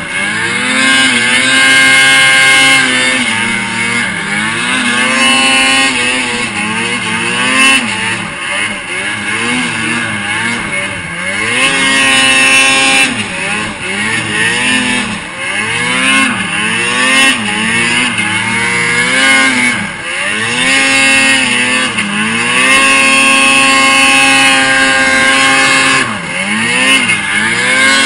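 A supercharged Arctic Cat 800 two-stroke snowmobile engine, heard on board, revving up and down again and again as the throttle is worked while climbing in deep snow.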